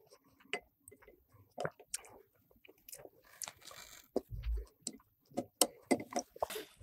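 Close-up eating sounds of soup being sipped from a plastic spoon: slurps, lip and mouth noises, and light clicks of the spoon in a glass bowl, picked up by a lapel microphone. A soft low thump comes about four seconds in.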